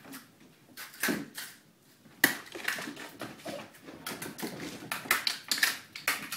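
Kittens playing on a hardwood floor: an irregular patter of scrabbling paws, taps and light thumps. There is a sharp knock a little over two seconds in, and busier scuffling after it.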